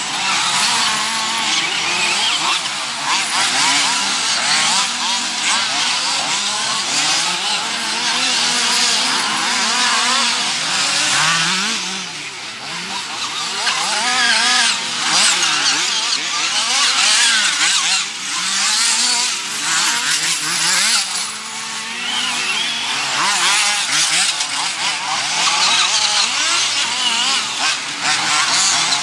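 Small engines of several radio-controlled off-road racing buggies running at once, their pitch rising and falling as they accelerate out of and brake into the corners.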